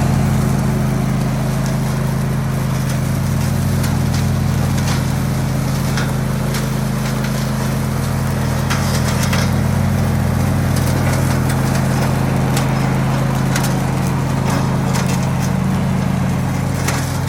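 An engine running steadily at constant speed, with scattered sharp cracks and pops of burning wood over it.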